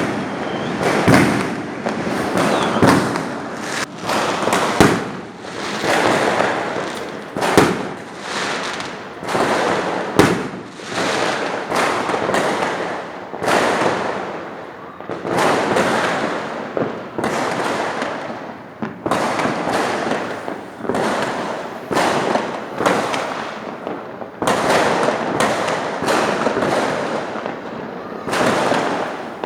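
Fireworks going off without pause: a dense run of sharp bangs, about one every second, with crackling between them.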